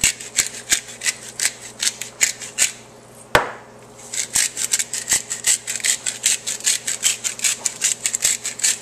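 Salt and pepper being put on: a run of quick, gritty strokes, about four a second. A single sharp knock comes about three and a half seconds in, then the strokes start again.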